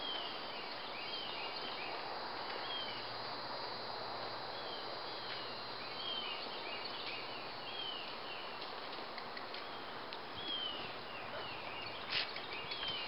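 Birds singing in the trees, a steady run of short down-slurred chirps, over a constant outdoor background hiss. A single sharp click sounds near the end.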